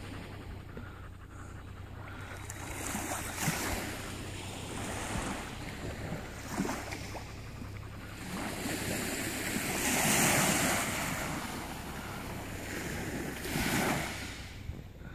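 Small waves breaking and washing up a pebble beach, with wind on the microphone. The surf swells loudest about ten seconds in and again near the end.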